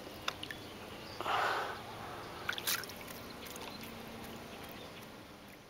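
Water dripping and ticking at a lake surface, with one short splash about a second and a half in as a released muskie kicks away.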